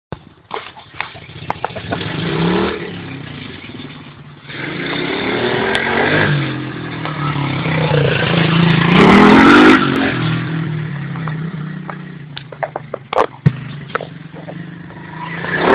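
Pit bike's small single-cylinder engine revving up and easing off again and again as it is ridden around. It grows louder and fades as the bike comes near and goes away, loudest about nine seconds in. A few sharp knocks sound about three-quarters of the way through.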